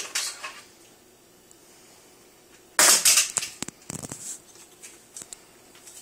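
Dishwasher control panel being handled and worked loose from the door: a sharp clatter about three seconds in, then a few lighter clicks and knocks.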